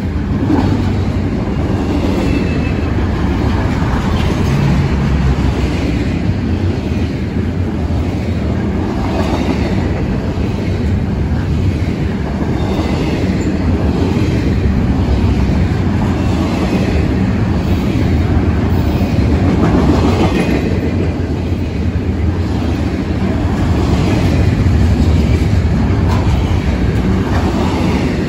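Double-stack intermodal well cars of a CSX freight train rolling past close by: a loud, steady rumble of steel wheels on the rails.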